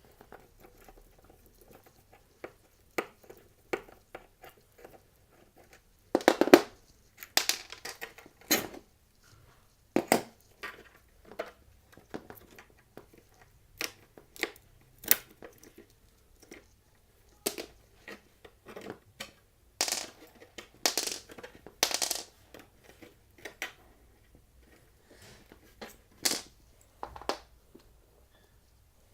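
Skateboard truck hardware being handled: irregular clicks and metallic clinks of bolts, nuts and a skate tool, with several louder knocks against the truck and deck.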